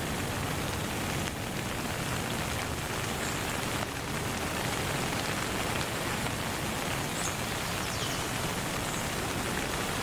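Steady rain, an even dense hiss of falling drops, with a couple of short, faint falling whistles about 8 s in.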